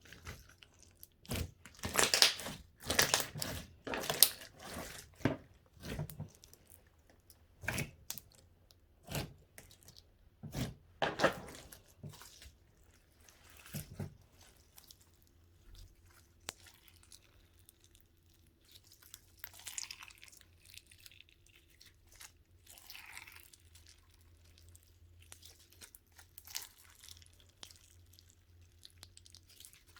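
Hands playing with a clear, gooey slime, stretching, pulling and squishing it. There is a quick series of sharp tearing and crackling sounds through the first half, then fainter, softer squishing.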